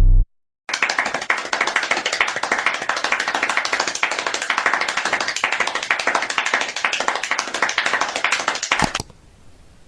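A rapid, dense, irregular patter of many small sharp hits, starting after a brief silence and stopping suddenly near the end.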